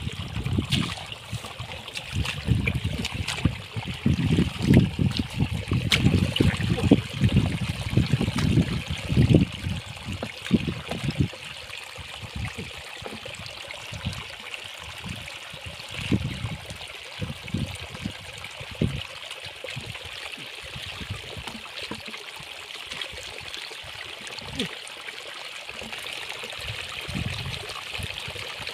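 Shallow muddy water trickling steadily through a small channel, with hands splashing and squelching in the wet mud. The splashing is busy for the first ten seconds or so, then comes only now and then.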